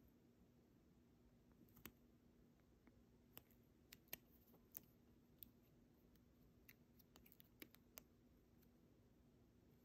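Faint, irregular small clicks and ticks of a tiny plastic SIM unlock chip being handled and flexed between fingertips, over a faint steady hum.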